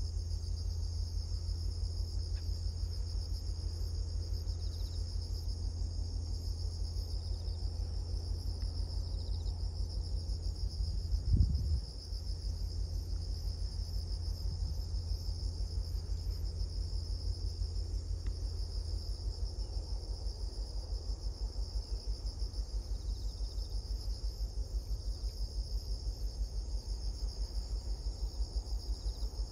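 Insects chirping in a steady, high, rapidly pulsing trill over a low steady rumble, with a single short thump a little over a third of the way in.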